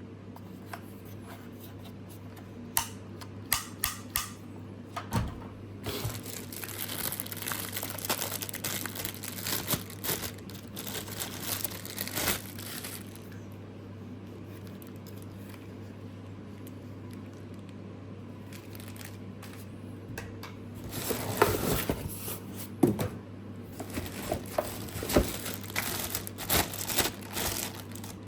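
Plastic packaging crinkling and rustling as it is handled during unpacking, in two long stretches, with scattered sharp clicks and knocks at the start and near the end.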